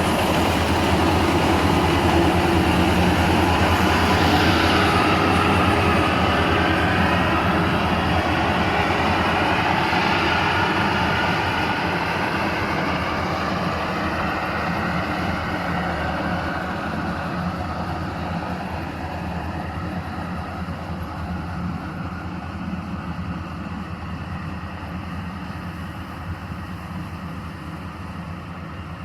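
A small World Star paddy combine harvester running steadily, with a low engine hum under the clatter and rush of its working machinery, gradually fading over the second half.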